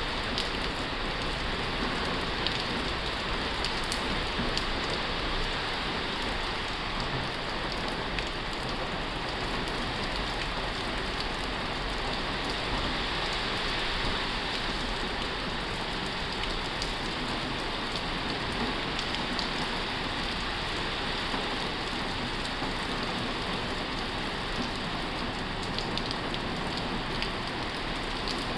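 Heavy rain falling on a tin roof: a steady, dense patter with scattered sharper drop hits.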